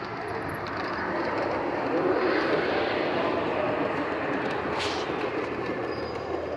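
Model freight train running past on its track, a steady rolling noise that grows louder about two seconds in as the cars pass close.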